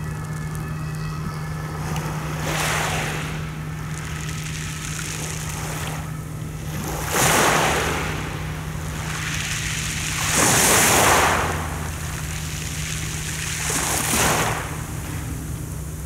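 Small sea waves breaking and washing over a pebble beach: four swells of hissing surf a few seconds apart, the third the loudest, over a steady low hum.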